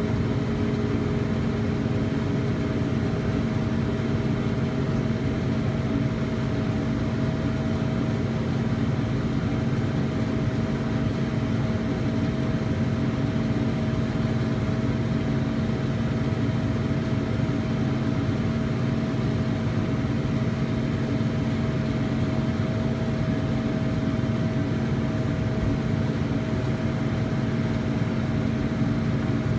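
Tractor and PTO-driven New Holland round baler running steadily while picking up and baling hay, an even machine hum with a few constant tones that never changes pace.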